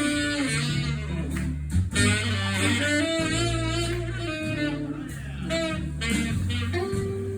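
Jump blues band playing an instrumental intro: saxophones carry a wavering melody over guitar and bass notes.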